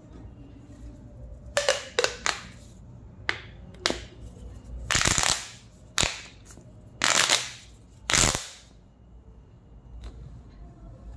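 Corrugated plastic pop tube toy being stretched and squashed, giving sharp pops: a few quick single pops in the first four seconds, then four longer, louder pops about a second apart.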